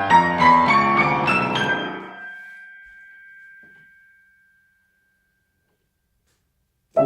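Piano music: a phrase of notes ends and rings out, fading to silence for about two and a half seconds, then the piano starts again abruptly near the end.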